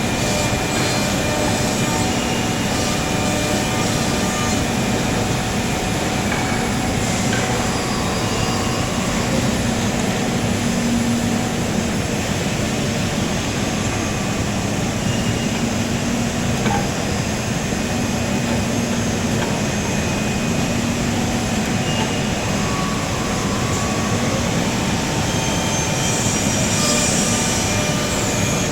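Ten-spindle CNC mortising machine for wood running, a steady mechanical noise with faint whining tones and no letup.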